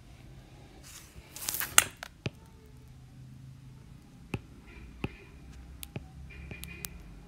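A stylus on a drawing tablet: a brief loud rustling scrape about a second and a half in, then a handful of sharp taps and short faint scratches as the pen touches down and draws.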